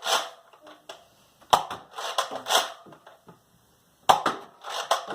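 Nerf Rival blaster firing: two sharp shots about two and a half seconds apart, each followed by a short burst of clattering.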